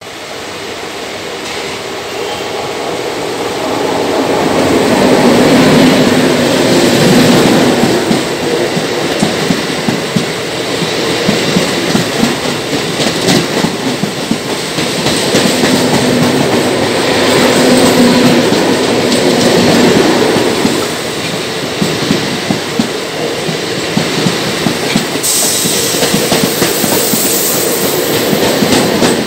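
Mumbai suburban electric local train running at speed, its wheels clattering rapidly over rail joints, with the rushing noise of another local train passing close alongside. The noise builds over the first few seconds and stays loud.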